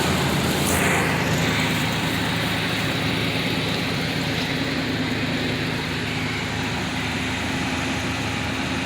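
2004 Ford Ranger's engine idling steadily while parked, running well.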